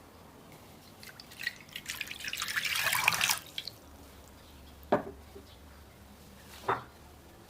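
Liquid, likely warm water, poured into a mixing bowl in a splashing stream for about two seconds, followed by two short knocks, like a cup or utensil against the bowl or counter.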